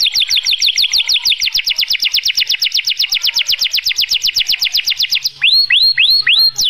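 Domestic canary singing: a fast, even trill of repeated falling notes, then a short break about five seconds in and a few slower notes that sweep up and over.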